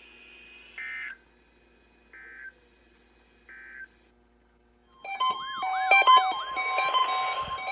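Three short warbling digital data bursts from a NOAA Weather Radio broadcast: the SAME end-of-message code, sent three times about a second apart. About five seconds in, a loud electronic alarm sound starts, with steady beeping tones and rising-and-falling siren-like sweeps.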